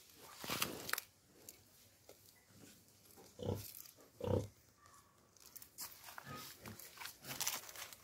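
Pigs grunting, two short low grunts around the middle, with scattered short rustling and clicking sounds near the start and toward the end.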